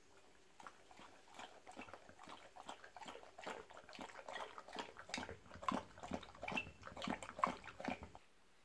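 Akita Inu lapping water from a bowl: a steady run of quick wet laps, about three or four a second, growing louder, then cutting off suddenly near the end.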